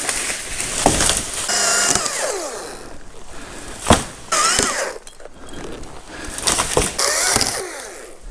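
Chainsaw cutting tree limbs in short bursts, its pitch rising and falling as it is revved up and let off. Several sharp cracks as limbs snap and peel away, the loudest about four seconds in.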